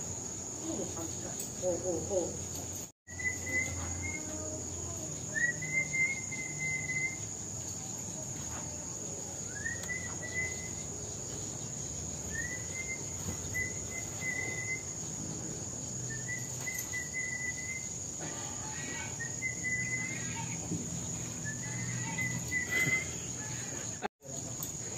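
A steady high-pitched insect chorus, with a bird repeating a short call that rises and then holds one pitch, seven times, about every two to three seconds. The sound drops out briefly twice.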